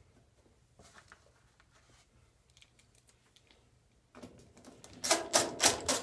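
A screwdriver and screw clicking and rattling against the washing machine's top deck as a screw is driven in. Faint small clicks at first, then about four seconds in a quick run of sharp, loud clicks.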